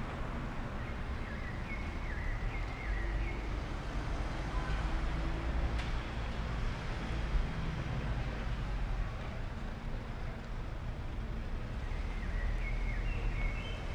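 Street ambience: a steady low rumble of road traffic, with a few short high chirps near the start and again near the end.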